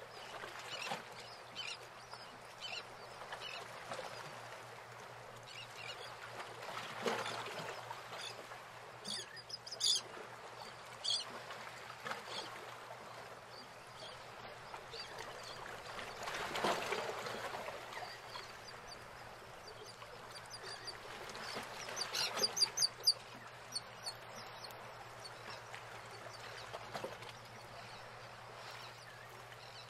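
Water birds calling in short chattering bursts over a steady wash of water noise. The loudest call series come around ten seconds in and again near twenty-two seconds.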